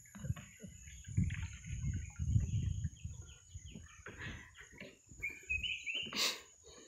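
Birds chirping and calling from the riverside forest over a steady high insect drone, with one sharper, louder sound near the end. Uneven low rumbling from wind and handling on the phone's microphone runs underneath.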